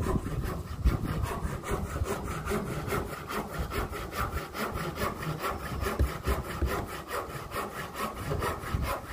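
Hand saw cutting through a wooden board in rapid, even back-and-forth strokes, trimming off a protruding piece so it fits.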